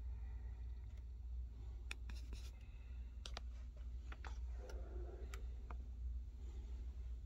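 A quiet room with a steady low hum and a few scattered faint clicks.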